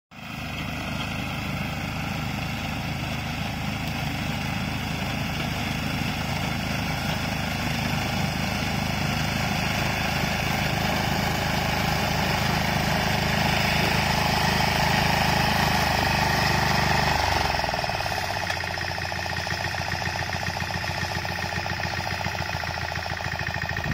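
Small engine of a walk-behind crop reaper running steadily under load as it cuts standing paddy. About three quarters of the way through, the engine note changes abruptly.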